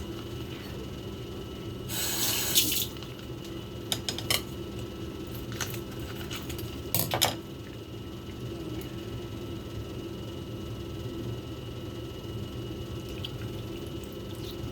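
Kitchen sounds during food prep: a short splash of running or poured liquid about two seconds in, then a few light clinks and knocks, over a steady low hum.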